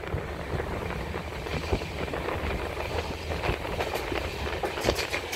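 Passenger train running along the track: a steady rumble of the wheels, with a few sharp clicks in the second half, more of them toward the end.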